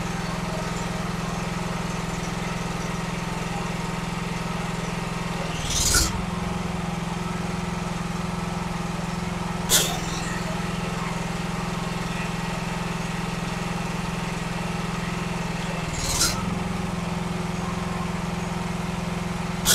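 Pressure washer engine running steadily while the spray gun's trigger is squeezed and released; a few seconds apart, a sudden burst of spray noise sounds as the water switches between the nozzle and the external unloader valve's bypass, twice with a building whoosh and a brief dip in the engine's note.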